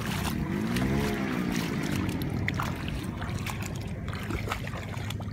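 Shallow muddy floodwater splashing and sloshing as a person wades through it with a cast net, with short irregular splashes over a steady low hum.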